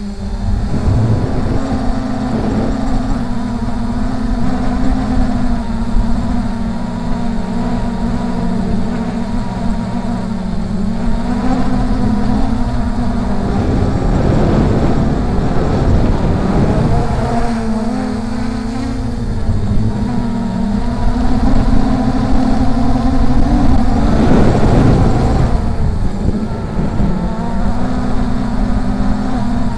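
Brushless motors and propellers of a Force 1 F100 Ghost (MJX Bugs 3) quadcopter running as it flies, heard from on board: a steady hum that swings up and down in pitch around the middle and again near the end as the throttle changes. Strong wind rumbles on the microphone under it.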